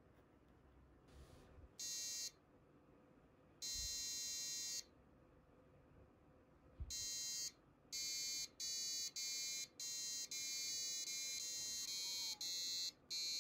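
Laser harp kit's on-board buzzer playing a dozen or so harsh, reedy electronic notes of differing pitch, each sounding while a finger blocks a laser beam over its photoresistor. The first few notes are spaced out; from about eight seconds in they come in a quicker run.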